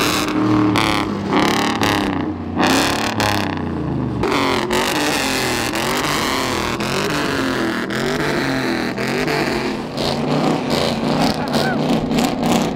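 Pickup truck engines running as trucks move past on the lot, with people talking over them.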